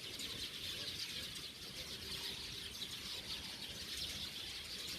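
Dense chorus of many small birds chirping continuously all at once.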